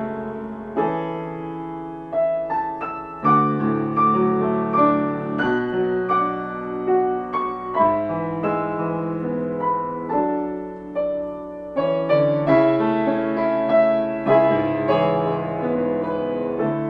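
Piano playing a slow, quiet prelude: held chords under a melody of single notes struck one after another.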